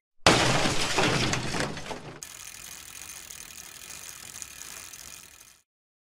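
Intro logo sound effect: a sudden loud, gritty crash that fades over about two seconds, then a faint hiss that cuts off near the end.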